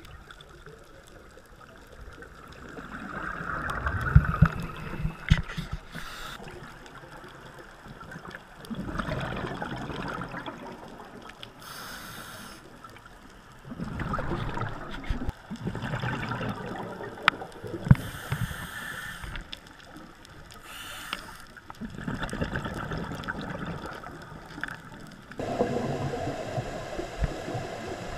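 Scuba breathing through a regulator underwater: exhaled bubbles gurgle in bursts every five or six seconds, with a short hiss of inhalation between some of them.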